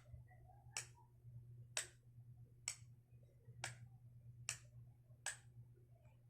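The switch of a signalling light clicking six times, about a second apart, as the Morse letter J is keyed out. Each click is sharp and faint, over a low steady hum.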